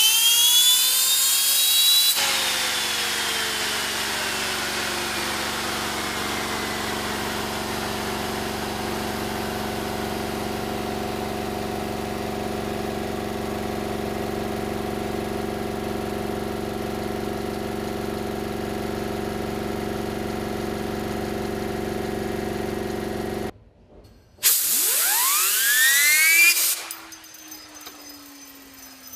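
Homemade fidget spinner whining at high speed. Its pitch rises under a loud hiss, then falls slowly with a steady hum beneath once the hiss stops about two seconds in. Near the end, after a brief break, another burst of hiss spins it up again with a rising whine that then sinks as it coasts.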